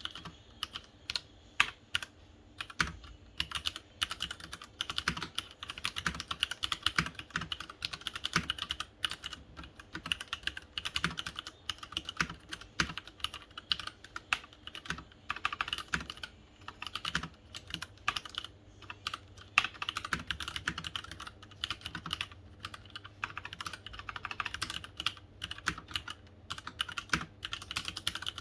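Leopold FC900R mechanical keyboard with red linear switches being typed on continuously: a rapid, uneven run of keystroke clacks with occasional louder strikes.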